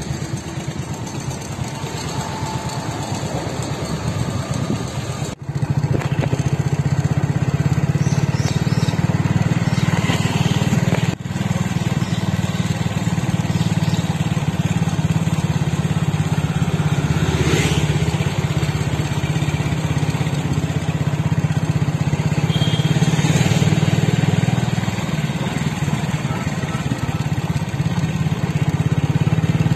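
Small vehicle engine running steadily while driving along a road, heard from on board, with a brief break about five seconds in.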